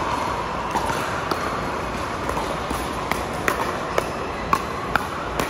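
Pickleball rally: paddles striking a hard plastic pickleball, a string of sharp pops that come faster in the second half, over steady background noise of a large indoor court hall.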